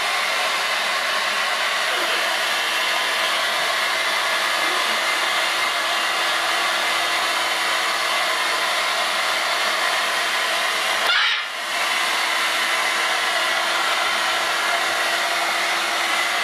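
Hair dryer running steadily, blowing air over wet macaws to dry them: an even rush of air over a steady motor hum, dipping briefly about eleven seconds in.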